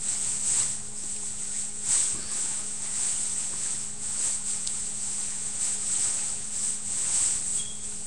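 High, pulsing chirring of insects that swells and fades every second or so, over a steady low electrical hum.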